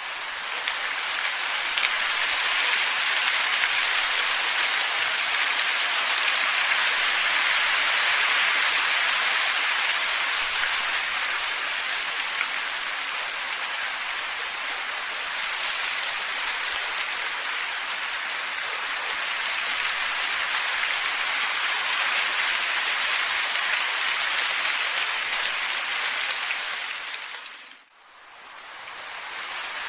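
Steady wind noise, an even rushing hiss that swells and eases slowly. About 28 seconds in it fades down almost to nothing and then rises again.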